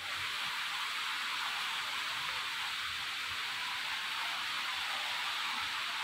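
Steady, even hiss with no change in level.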